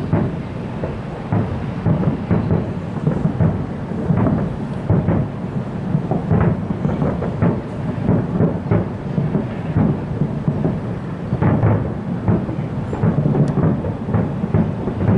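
Aerial fireworks bursting in a dense barrage, several bangs a second overlapping into a continuous rumble.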